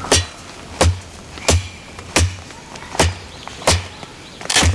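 ESEE-5 fixed-blade survival knife chopping into a half-rotten oak branch: seven sharp blade strikes into the wood, about one every 0.7 seconds, the last the loudest and longest.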